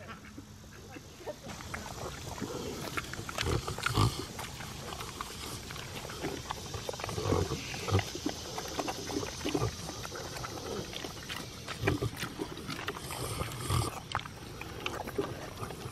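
Pigs grunting as they root and eat from the ground, in short low grunts at irregular intervals, roughly one every second or two.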